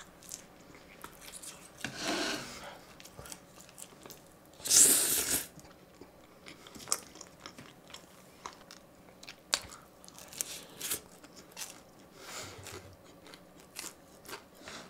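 Close-miked eating sounds: a person chewing and biting tteokbokki, with many small wet clicks of the mouth and utensils, and a louder burst of noise about five seconds in.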